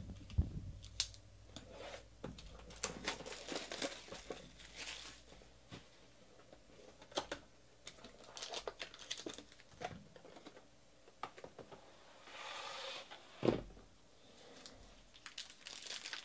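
Cardboard box of Elements football trading cards being opened and its packaging handled: irregular crinkling, tearing and rustling with small clicks and a few louder knocks.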